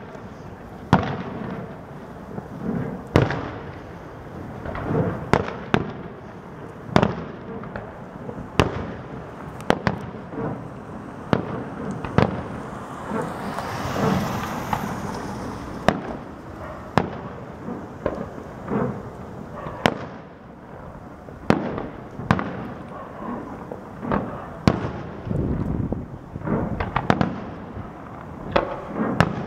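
Aerial firework shells bursting: repeated sharp bangs every second or two, each with a short echoing tail, and a longer hissing crackle about halfway through.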